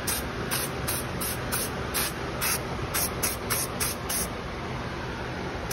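Aerosol can of black truck bed liner coating spraying in short repeated bursts of hiss, a few a second, stopping for a moment about four seconds in. It is being sprayed as undercoating onto a car's floor pans.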